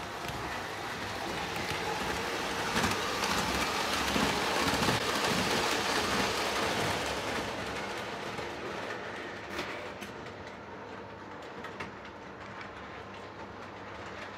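Lionel O-gauge model train running on three-rail tinplate track: a steady rumbling clatter that grows louder to a peak about five seconds in and then fades, with a few sharp clicks.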